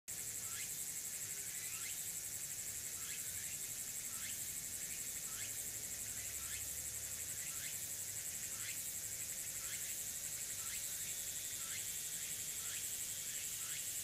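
Tsukutsuku-boshi cicada singing: a steady, high, rapidly pulsing buzz. Through it runs a lower, short chirp that repeats about once a second.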